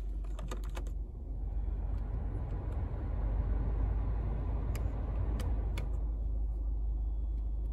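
Heater blower fan of a 2015 Seat Ibiza turned up with the dash fan-speed knob: a rushing of air that builds about a second and a half in, holds, then dies away near the end, with a few clicks of the knob. The 1.4 engine idles as a steady low hum underneath.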